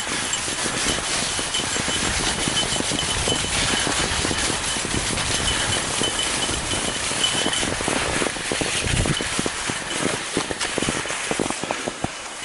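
Skis sliding fast over a packed snow trail behind two pulling dogs: a steady rushing hiss with many small irregular clicks and rattles, easing a little near the end.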